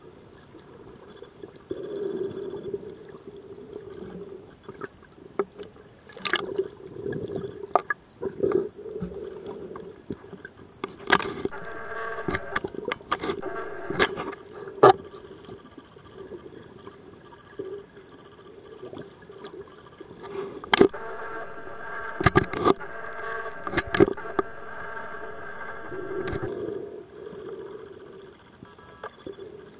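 Underwater ambience picked up by a camera below the surface: water moving and gurgling, with scattered sharp clicks and knocks. A droning hum with several pitches comes in twice, about 11 seconds in and again from about 21 to 26 seconds.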